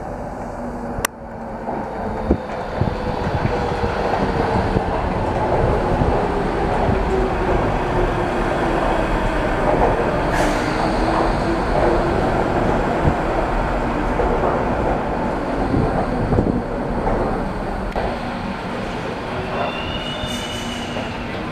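Docklands Light Railway train running into a station and slowing, its motor whine falling steadily in pitch over the wheel and rail rumble. A sharp click about a second in, and a few short high beeps near the end.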